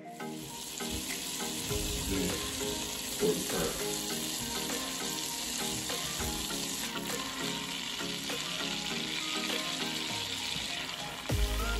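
Butter and Crisco sizzling and bubbling as they melt in a hot Dutch oven, the fat for a roux; a steady sizzle with soft background music underneath.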